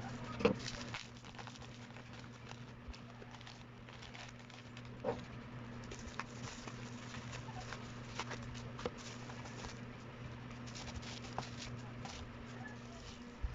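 Scattered light taps and clicks of small parts being handled, over a steady low mains hum.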